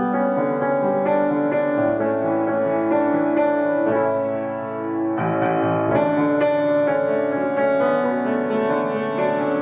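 Solo piano music: melody over sustained chords, with notes changing every second or so.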